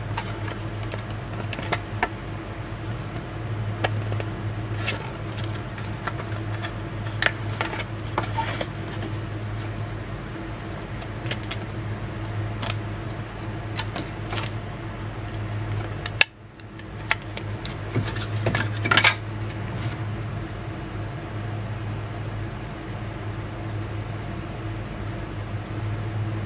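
Hard plastic clicking and rustling as a SanDisk Extreme USB 3.0 flash drive is handled and worked out of its plastic packaging, with scattered sharp clicks and a louder cluster of them about two thirds of the way through. A steady low hum runs underneath.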